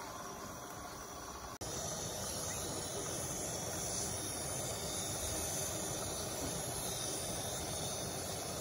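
Steady outdoor night ambience: a hiss with insects chirping. A sharp edit about a second and a half in turns it into a louder steady hiss.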